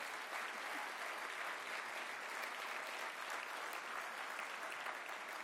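Audience applauding steadily, a dense even clapping that holds without a break.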